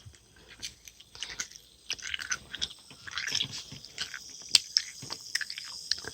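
Carbonated Helena soda fizzing around Skittles dropped into it: an irregular crackle of many small popping clicks as the bubbles break.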